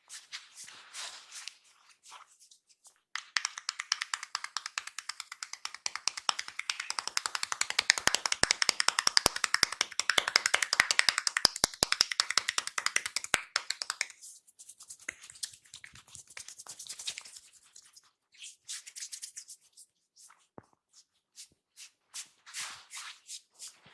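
A barber's hands tapping rapidly in a percussive massage: a fast run of crisp taps starts about three seconds in, swells louder, and gives way after about ten seconds to softer, scattered taps and rubbing.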